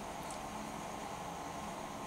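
Steady low hiss of background noise with a faint constant hum; no distinct event.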